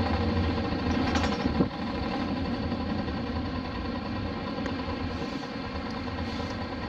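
Engine of a Hino Blue Ribbon RC monocoque bus running, heard from inside the bus as a steady, many-toned engine note. About a second and a half in there is a short knock, after which the engine runs somewhat quieter and lower.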